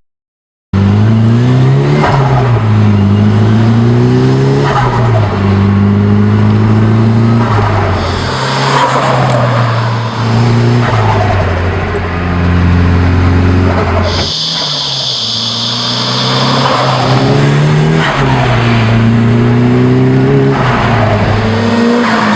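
Turbocharged car engine revving up and dropping back repeatedly, with a burst of turbo flutter, compressor surge chattering out through the intake, each time the throttle is lifted. The blow-off valve has been removed and blocked off to make this flutter.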